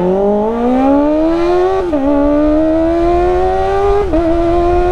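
Kawasaki ZX-25R's 250 cc inline-four accelerating hard through an IXIL full exhaust, its pitch climbing steadily. The note dips briefly twice, about two and four seconds in, as the quick shifter snaps through upshifts.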